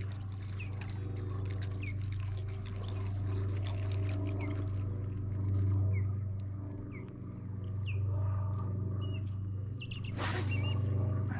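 Small birds calling with short falling chirps over a steady low hum, and about ten seconds in a fishing rod is swished through a cast with a brief rushing sound.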